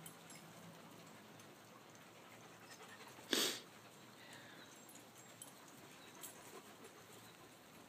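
A dog gives one short, loud huff about three seconds in, over faint background.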